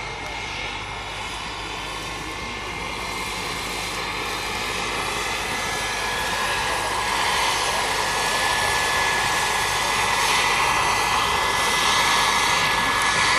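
Turbine-powered scale model Bell 412 helicopter in flight: a steady high turbine whine over rotor and engine noise, growing steadily louder as it comes in low and close.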